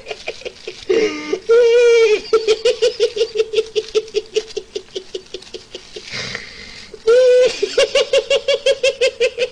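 A man's high-pitched, uncontrollable giggling laughter. It comes in runs of quick pulses, about six or seven a second, broken by a couple of drawn-out squeals and a short pause about six seconds in.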